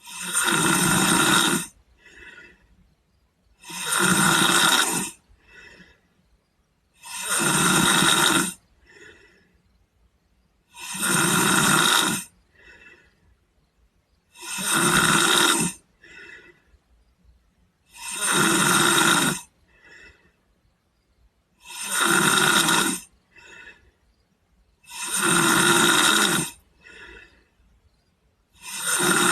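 A sleeping boy snoring in a steady rhythm: a loud snore lasting about a second and a half, repeating about every three and a half seconds, each followed a moment later by a brief, faint breath.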